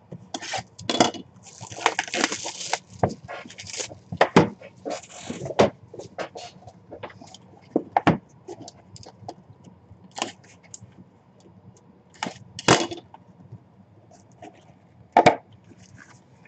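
A small cardboard box being opened and handled by hand on a table: scattered knocks, taps and scrapes, with a short rasp of cardboard about two seconds in.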